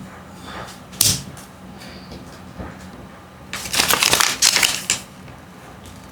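Kinder Joy packaging being handled and opened: a sharp click about a second in, then a loud burst of crinkling and crackling of plastic wrapping lasting about a second and a half.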